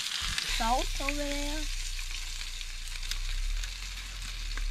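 Food sizzling and frying in a frying pan, a steady high hiss, with a low steady hum underneath from about half a second in.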